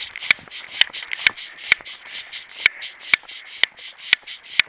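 Handling noise from a body-worn camera swinging with a hiker's walking steps: a sharp click about twice a second, in time with the strides, over a continuous scratchy rustle of clothing rubbing on the microphone.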